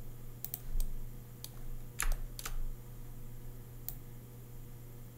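Scattered clicks of a computer keyboard and mouse, about six at irregular intervals, over a steady low hum.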